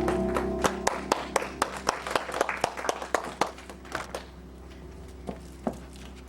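The congregation gives scattered applause at the end of a song. The music's last chord dies away first, then a run of sharp handclaps at about four a second thins out and stops, with a couple of stray claps near the end.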